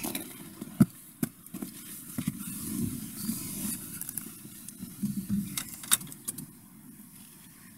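Footsteps on snow and a driver getting into a car, with several sharp knocks from the door and seat and keys jangling as the ignition is switched on. The engine is not yet running.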